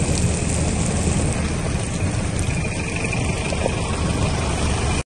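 Torrential rain and hail pouring down in a steady, dense hiss over a strong low rumble.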